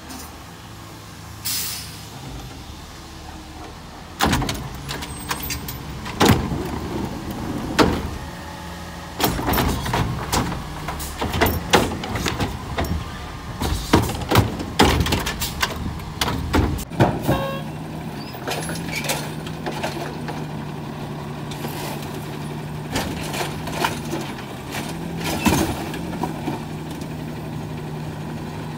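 Automated garbage trucks picking up wheeled trash carts: a brief air hiss near the start, then a long run of clanks and bangs as a truck arm grips, lifts, shakes and sets down carts. From about two-thirds of the way in, the truck's engine runs with a steady hum under occasional knocks as a side arm lifts another cart.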